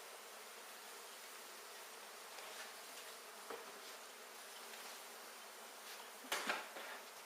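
Honey bees from an opened hive buzzing in a steady, dense hum, with a couple of sharp knocks about six seconds in.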